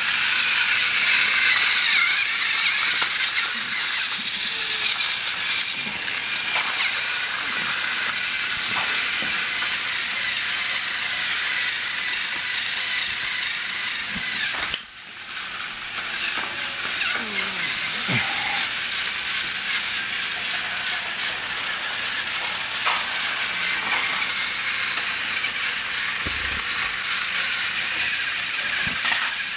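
Battery-powered TrackMaster toy trains running on plastic track: a steady high motor whir with rattling and clicking of wheels and cars. The sound dips briefly about halfway through.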